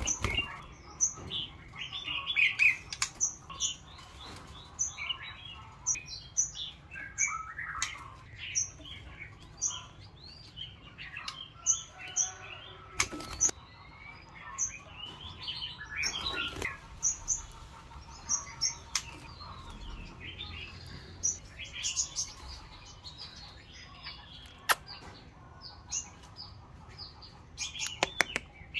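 White-rumped shama chirping and singing in short, varied phrases, with a high short note repeated about once a second. Its wings flutter and a few sharp clicks come as it hops and flies about the bamboo cage.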